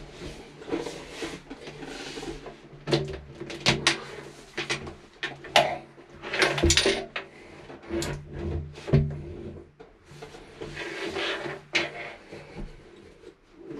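A large car-audio subwoofer being tipped up, shifted and set back down by hand: irregular knocks, clunks and scrapes of its metal basket and magnet against the floor. The loudest knocks come around the middle.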